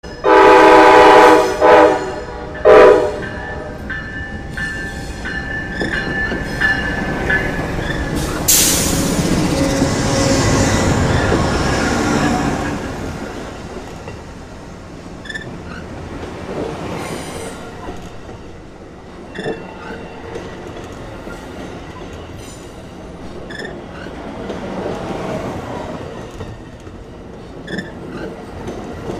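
Amtrak GE Genesis diesel locomotive sounds its horn: one long blast, then two short ones in the first three seconds. There is a thin wheel squeal for a few seconds, and the locomotive is loudest as it passes at about eight seconds in. A long train of bi-level Superliner passenger cars then rolls by with wheels clicking over the rail joints.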